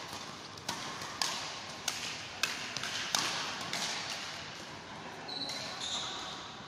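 Badminton rackets striking a shuttlecock in a fast rally, about five sharp hits a little over half a second apart, each echoing briefly in a large sports hall. The hits stop about three seconds in, and a brief high squeak follows near the end.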